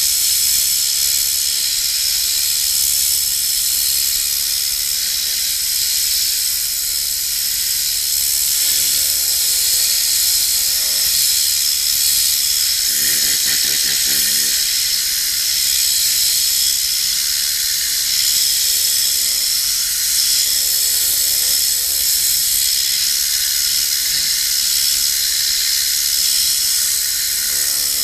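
Tornador compressed-air cleaning gun blowing on car floor carpet: a steady, loud, high hiss of air from the nozzle.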